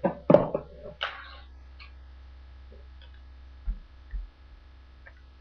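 Tech Deck fingerboard clacking on a cardboard box: a cluster of sharp clicks and knocks, then a brief scraping roll about a second in. Scattered light ticks follow, then two dull thumps a little before the end.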